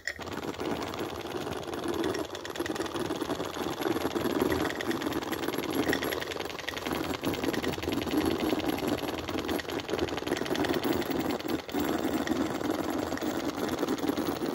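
Mercer model traction engine running steadily, its crankshaft, flywheel and valve gear making a fast, even mechanical clatter.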